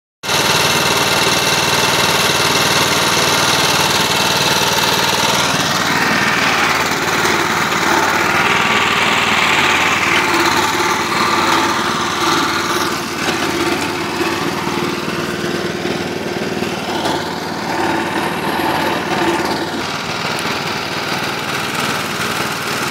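Small petrol engine of a Wagner HC960 hydraulic airless paint sprayer running steadily.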